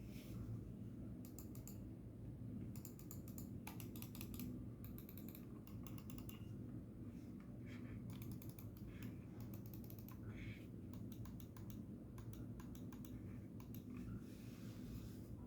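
Logitech G402 gaming mouse buttons clicking, mostly in quick runs of several clicks with a few single clicks between.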